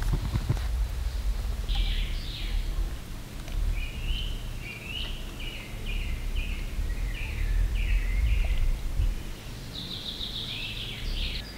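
A small bird calling in a run of short chirps, about two a second, ending in a higher, longer trill, over a steady low outdoor rumble. A few light clicks at the very start.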